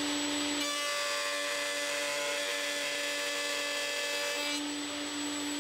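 Table-mounted Triton router running with a steady high whine while its bit cuts a groove in a wooden strip fed across the table; the cutting noise comes in about half a second in and drops away at about four and a half seconds, leaving the motor spinning freely.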